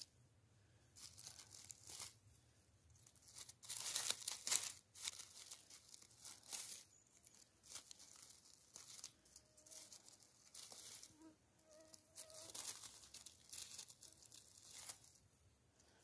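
Footsteps rustling and crunching through dry forest litter and undergrowth, in irregular bursts, loudest around four seconds in.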